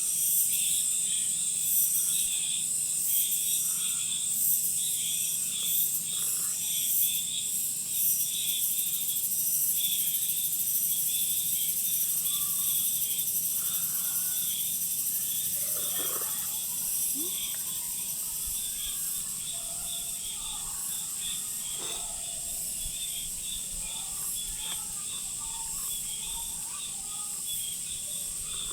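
Insects, crickets or similar, chirping in a steady chorus: a continuous high trill with a faster pulsing chirp a little lower.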